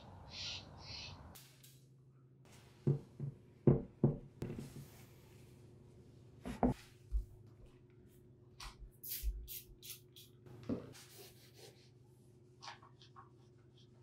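Microfiber cloth wiping a glass door and its frame: brief swishing strokes and a few sharp knocks of hand and cloth against the door, over a steady low hum.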